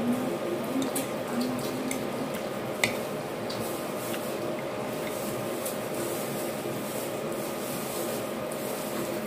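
Spoon and fork clinking and scraping on a ceramic plate while eating rice, a sharp clink about three seconds in and a few fainter ones later, over a steady background hum.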